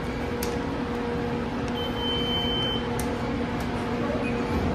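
Metro ticket gate reader giving one steady high beep, about a second long, when a ticket is presented, signalling that it is accepted. Under it runs a steady low hum.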